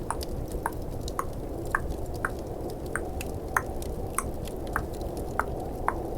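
Tongue clicks, about two a second at an even pace, over the steady low hiss of a snowstorm ambience track with faint fireplace crackling.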